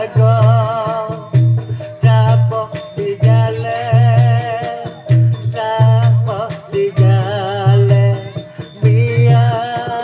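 Wayang kulit ensemble music: a wavering, ornamented reed-like melody over low drum beats that recur about once a second, with a jingling rattle.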